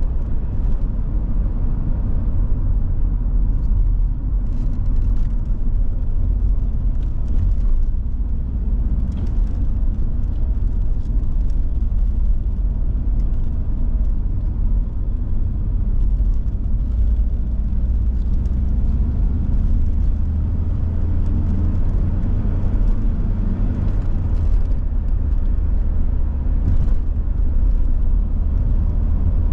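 Volvo 740 GL driving at a steady pace: a steady low engine and road rumble, with faint short ticks now and then.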